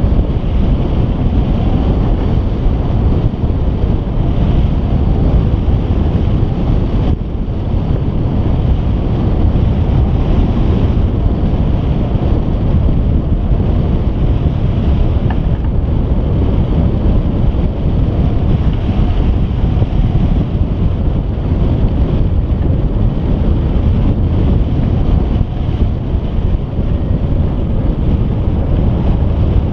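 Steady, loud rush of airflow over the microphone of a wing-mounted camera on a hang glider in flight, heaviest in the low end, easing slightly about seven seconds in.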